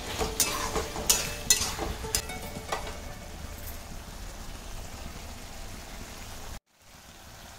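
Vegetable curry in a kadhai sizzling and bubbling over a gas flame, with a few sharp clicks in the first three seconds. The sound cuts out for a moment near the end.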